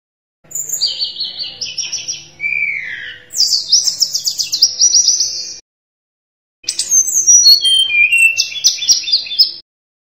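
Tledekan gunung, a blue-and-orange flycatcher, singing in full voice: a long run of rapid, varied high whistles and trills, a pause of about a second, then a second run that steps down in pitch note by note.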